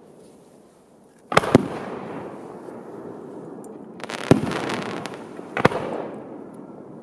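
Aerial firework shells bursting overhead. A sharp double bang comes about a second and a half in, then a cluster of several quick cracking reports around four seconds, then another bang near six seconds. Each trails off in a long echo.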